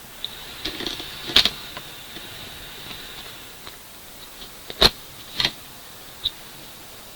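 A few sharp clicks and knocks, the loudest about a second and a half in and twice more near five seconds, like small objects being handled and set down on a work table, over a steady hiss.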